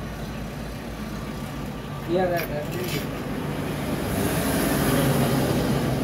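Steady background noise, a low rumble with hiss, with a few brief voice-like sounds about two seconds in and a brief high hiss toward the end.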